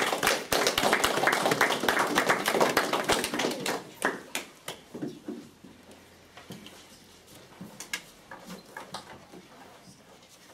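A small audience clapping, dense for about four seconds and then thinning out into a few scattered claps and light clicks.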